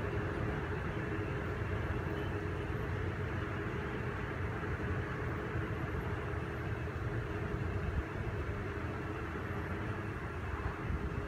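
Sound unit of a large-scale model diesel locomotive playing a steady engine idle while the train stands, with a low rumble underneath.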